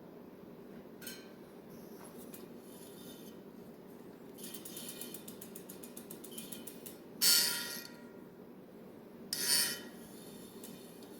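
Bicycle wheel being turned by hand during truing: a few seconds of rapid, even ticking, then two short, louder metallic rasps about two seconds apart.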